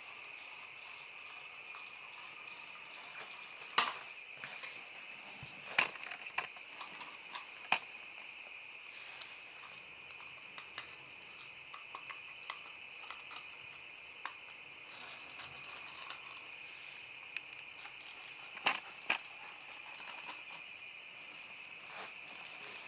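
A house alarm outside sounding as a steady high-pitched tone with a slight warble. Over it come sharp clicks and knocks as a small plastic toy car is handled and set down on a wooden floor, the loudest about 4, 6 and 8 s in and a pair near 19 s.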